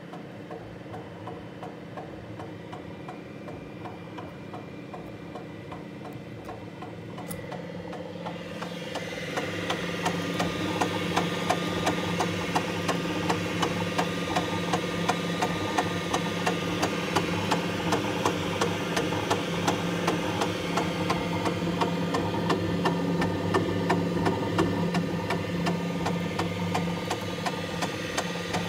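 An engine running with a regular knock ticking through it. The engine speeds up about eight to ten seconds in and then holds at the higher, louder speed with the knocking still going.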